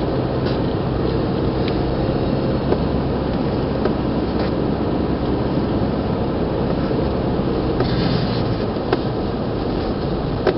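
A car driving up a steep, winding road, heard from inside the cabin: a steady engine and tyre rumble with a few light clicks and knocks from the interior.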